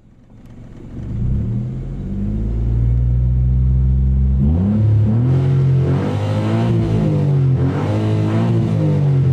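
Perodua Kenari's engine and loud exhaust heard from inside the cabin while driving; the exhaust is broken. The note builds about a second in, holds steady, then from about four and a half seconds in rises and falls as the engine revs up and eases off.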